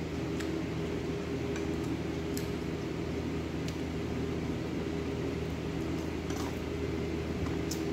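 Steady mechanical hum of a running household appliance, such as a fan or air conditioner, with several low steady tones. A few faint light clicks of eating at the table.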